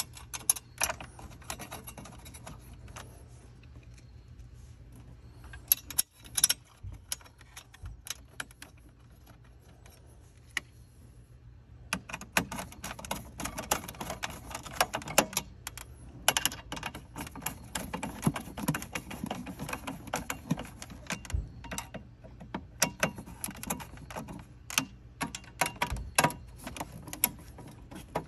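Car stereo wiring harness plugs and cables being handled: irregular small plastic clicks and rattles, in scattered bursts that grow busier about halfway through, over a faint steady low hum.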